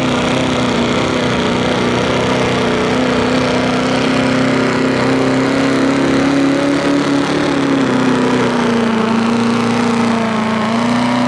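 Turbocharged diesel engine of a Chevrolet Silverado pickup pulling a sled at full throttle, a loud, steady engine note that sags slightly late on and picks up again near the end.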